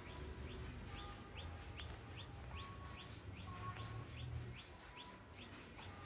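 A bird calling steadily, one short rising note repeated about three times a second, with fainter calls from other birds over a low rumble.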